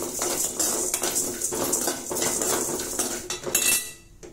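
Metal spoon stirring and scraping dry toor dal, chana dal and raw rice around a metal kadai while they dry-roast, a steady clatter of grains and spoon against the pan. The stirring stops suddenly near the end.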